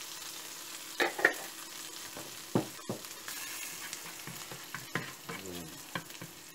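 Chopped garlic and cilantro sizzling in olive oil in a nonstick frying pan while a spatula stirs through them, with a few sharp knocks of the spatula against the pan.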